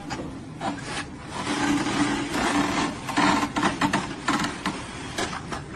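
Rough, irregular scraping and rasping, with scattered sharp clicks and a faint steady hum underneath.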